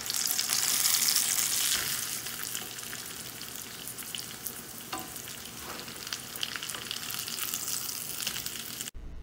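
Coconut-crusted orange roughy fillets frying in coconut oil in a nonstick pan: a steady crackling sizzle, loudest in the first couple of seconds as the fillets are turned over with a spatula.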